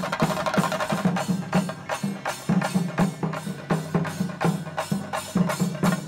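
Chenda drum ensemble, Kerala cylindrical drums beaten with sticks, playing a loud, driving rhythm of sharp stick strokes, about three accented strokes a second over continuous rolls.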